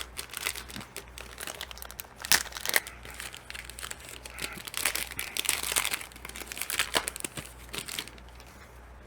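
Plastic wrapper of an NBA Hoops cello pack of trading cards crinkling and tearing as it is opened by hand. It is a run of irregular crackles that thins out near the end.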